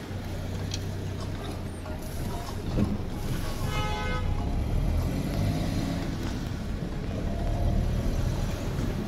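Road traffic: vehicle engines running steadily with passing vehicles swelling louder in the middle and near the end, and a horn sounding briefly about four seconds in.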